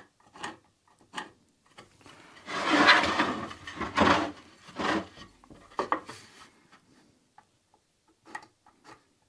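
Pencil and a combination square working against a teak-board drum shell: light scratches and small clicks, with louder wooden rubbing about three seconds in, and again briefly a little later, as the shell is turned.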